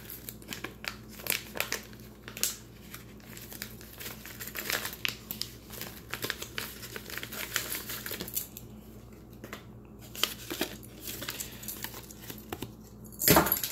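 Plastic packaging crinkling and rustling as it is handled and torn open by hand, in many short irregular crackles, with one louder rustle near the end.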